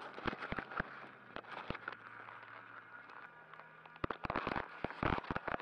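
Faint, irregular crackling and clicking, with a denser run of louder clicks about four to five and a half seconds in.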